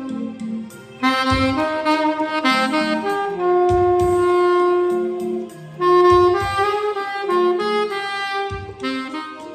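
Saxophone playing a slow melody in C minor, held notes changing every second or so, recorded dry without added effects. Underneath is a backing accompaniment with a low drum hit roughly every two and a half seconds.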